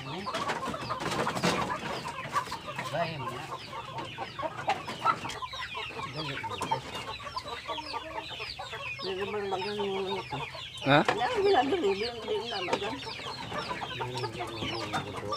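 Chickens clucking continuously in a wooden coop as they are reached in for and caught, with a longer, louder call about nine seconds in and a sharp knock near eleven seconds.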